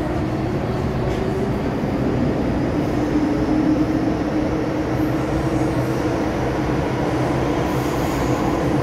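MTR M-Train electric metro train running at speed, heard from inside the car: a steady rumble of wheels on rail with a steady hum under it.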